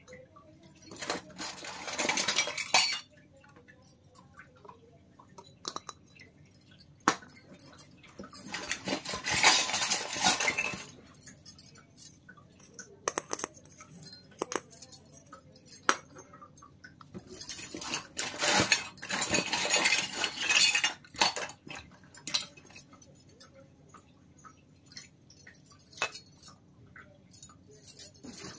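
Miniature stainless-steel toy pots, plates and lids clinking against each other and being set down on a wooden table: three spells of rattling a few seconds long, with single sharp taps between.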